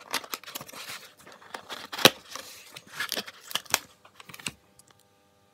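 Cardboard box being pried open by hand: a run of scraping, crackling and tearing as the flaps and tabs come apart, with one sharp snap about two seconds in. It dies down near the end.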